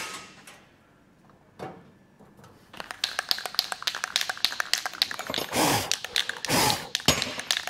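Aerosol can of etch primer shaken, its mixing ball rattling in a fast run of clicks. Two short hisses of spray come near the end, as primer goes onto the steel crossmember.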